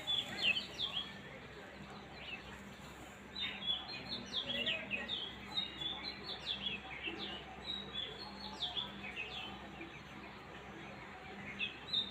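Small birds chirping: quick runs of short, high chirps in bursts, with a pause of about two seconds after the first second and a quieter stretch near the end before the chirping picks up again.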